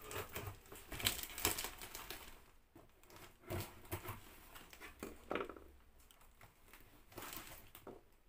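Scissors snipping and cutting through a cardboard box and its packing tape, with crinkling and rustling of the packaging. The sounds are irregular, busiest in the first couple of seconds and then scattered.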